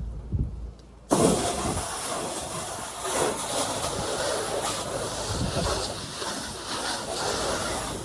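Pressure washer spraying: the high-pressure water jet cuts in abruptly about a second in and hisses steadily, rising and falling a little as it plays over the surface.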